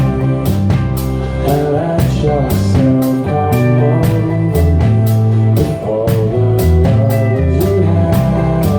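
Live band playing an instrumental passage: drum kit keeping a steady beat under electric guitar and bass, between sung lines.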